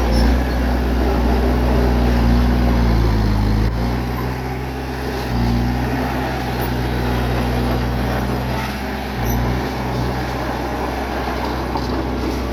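Bulldozer's diesel engine running under load, a deep steady drone whose pitch and loudness shift a few times as the load and throttle change.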